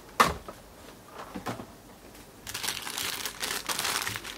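A single sharp knock just after the start, then from about halfway on, the steady crinkling of clear plastic zip-lock bags being handled.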